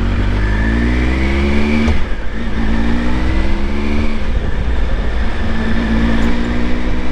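Motorcycle engine accelerating through the gears: its note climbs, drops at an upshift about two seconds in, climbs again, drops at another shift about four seconds in, then rises a third time, over a steady low rumble.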